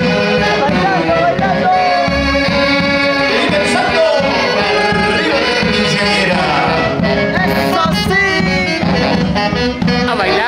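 Music with a singing voice over a full band accompaniment, playing steadily.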